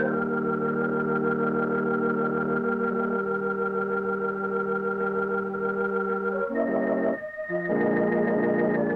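Organ music: slow, sustained chords, each held for several seconds, with a brief break about seven seconds in before the next chord sounds.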